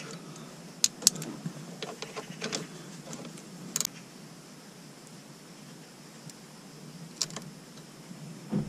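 Small, irregular metallic clicks and taps from a screw extractor being turned by hand in a stripped steering-wheel hub bolt, the loudest about a second in and a few more scattered through the rest.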